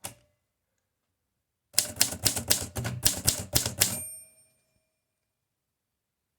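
Manual typewriter: a short click, then about ten quick keystrokes at roughly four a second. The run ends with the margin bell ringing briefly.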